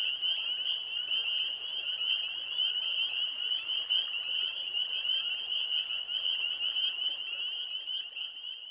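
Dense chorus of spring peepers: many high peeps overlapping into one steady chorus, fading out near the end.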